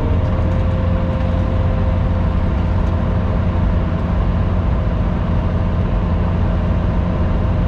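Skid steer engine running steadily, a continuous heavy low drone with no change in level.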